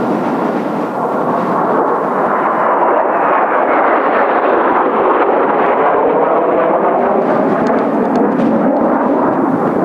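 Kawasaki T-4 jet trainers' twin turbofan engines roaring as the formation makes a low pass, the roar building over the first few seconds and holding loud to the end, with a slow sweeping phasing in its tone.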